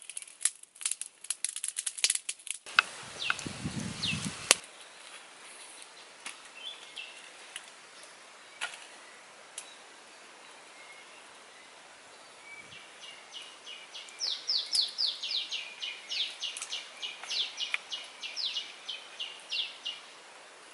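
Sharp crackling clicks at the start, then a short rush of noise with a couple of knocks about three to four seconds in. For the last six seconds a bird calls a fast run of high sweeping notes, about three or four a second.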